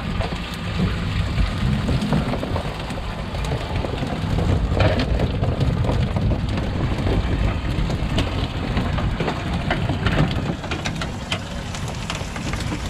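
Small pinfish and pigfish flopping on a fiberglass boat deck as they are shaken out of a wire bait trap: many small slaps and taps, over a steady low rumble.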